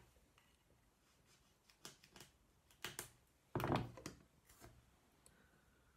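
A few faint, short scrapes and clicks of black tape being cut and handled for a second strip, the loudest a brief rustle a little past halfway.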